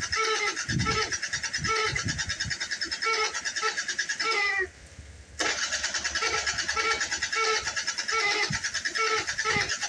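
A scooter engine being cranked over by its starter without catching, in an even repeating rhythm. It stops for under a second just before halfway and then cranks again. This is a failed cold start, which the uploader puts down to the cold and wet and tags as a flooded engine.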